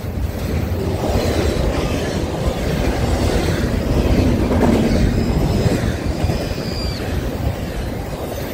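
Double-stack intermodal freight train passing at speed: a steady rumble and rattle of its cars' wheels on the rail. A faint, thin, high wheel squeal comes in for a second or two past the middle.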